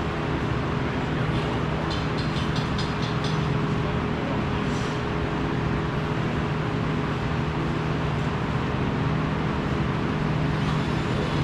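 Steady mechanical drone with a low hum, with a brief run of quick ticks about two seconds in.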